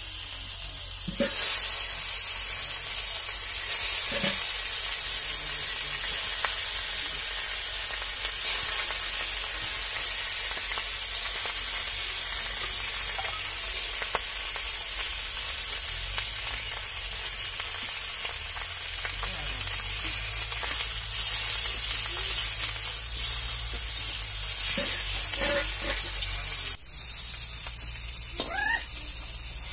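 Fish pieces frying in hot oil in an iron wok, a steady loud sizzle that swells now and then. Near the end a metal spatula scrapes a few times against the pan as the pieces are turned.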